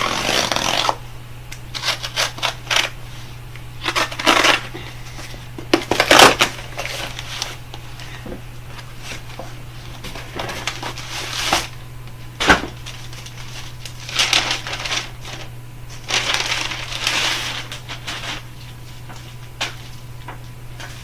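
Cardboard shipping box being torn open by hand, with irregular bursts of crackling and ripping packaging and a few sharp clicks.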